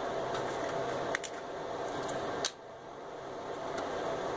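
A few light clicks and taps as a hand handles a Kingston 4 GB memory module in an open desktop PC case: two small clicks about a second in and a sharper one about halfway, over a steady background hum.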